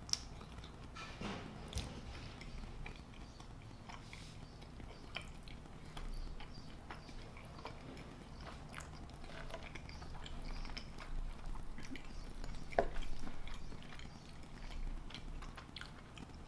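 Quiet close-miked chewing of chili cheese fries: soft, wet mouth sounds with scattered small clicks, and a louder click about 13 seconds in.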